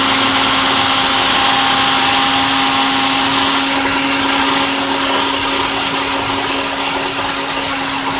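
Ninja blender running at a steady speed, blending banana and aloe vera juice, its motor whine holding one pitch throughout.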